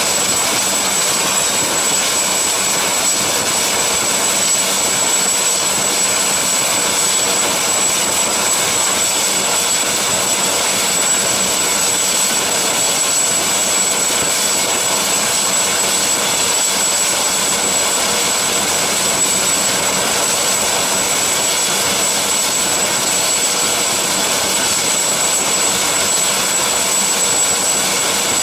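Helicopter on the helideck with its turbine engines running and rotors turning: a steady high whine over a broad rushing noise, unchanging throughout.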